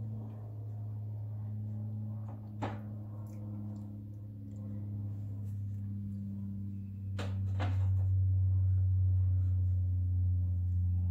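A few short knocks as small fairy-garden miniatures are set down on a galvanized metal tiered tray, over a steady low hum that grows louder about two thirds of the way through.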